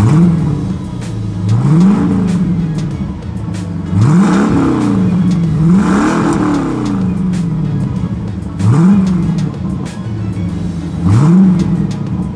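C4 Corvette V8 revved in short blips from idle through a muffler-deleted exhaust, about six times, each rise in pitch falling back to idle.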